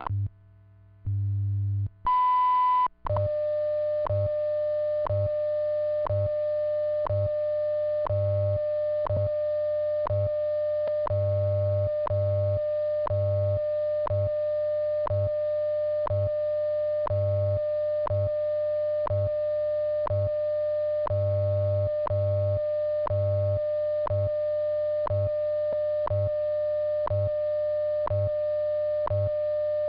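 WWV time-signal broadcast: a short, loud high beep about two seconds in marks the top of the minute. Then a steady lower tone runs on, with a seconds tick about once a second, and low hum-like time-code pulses of differing lengths beneath.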